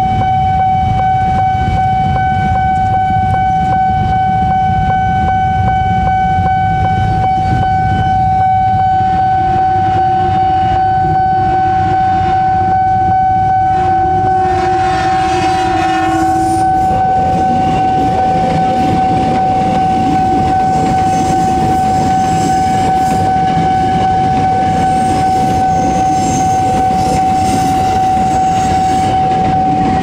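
Level-crossing warning alarm sounding one steady high tone with the barrier down, stopping right at the end as the train clears. About halfway through, a train horn blows for a couple of seconds. Then a KRL electric commuter train passes over the crossing, its wheels rumbling and clattering on the rails.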